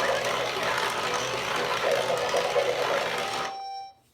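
Remote-control Cory Carson toy vehicle running: a steady small-motor noise mixed with the toy's own sound effects. It cuts off abruptly about three and a half seconds in, leaving one fading tone and then near silence.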